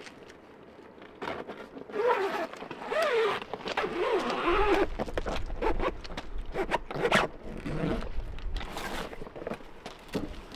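Zipper on the travel cover of a roof-rack-mounted vehicle awning being pulled open in a few separate pulls, with rustling of the cover. A low rumble runs under the middle part.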